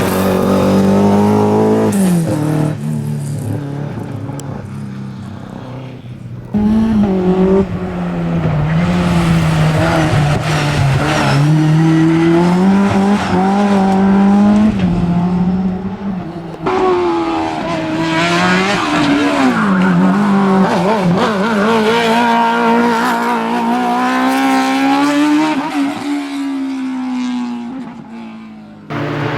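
Historic racing car engines revving hard and falling back between gears as the cars accelerate and slide, with some tyre squeal. The sound changes abruptly twice, about a third and about halfway through, as one car gives way to another.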